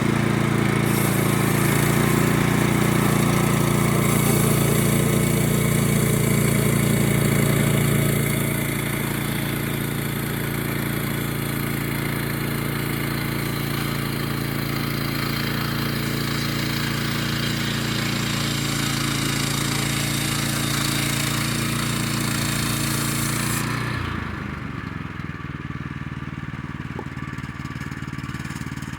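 Small gasoline engine of a portable band sawmill running steadily at speed, with a hiss of the blade over it. Near the end the high hiss cuts off and the engine drops to a lower, quieter idle.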